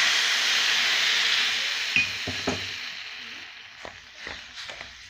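Water poured onto sugar in a hot pan sizzling, a loud hiss that slowly dies away over a few seconds. From about two seconds in, a spoon clinks and scrapes in the pan as the sugar and water are stirred into syrup.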